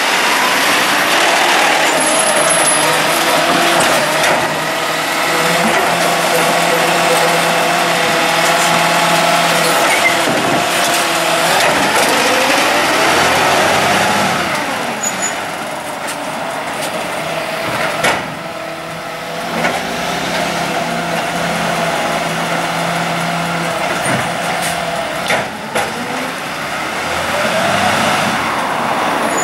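Volvo side-loader garbage truck running as it collects bins, its engine and hydraulics making a steady hum that swells twice for several seconds. A few sharp knocks come in the second half.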